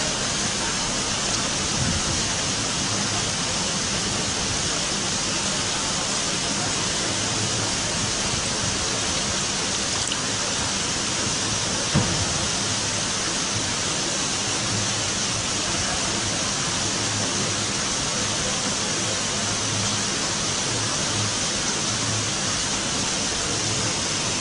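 Steady rushing noise at an even level, with one short sharp click about halfway through.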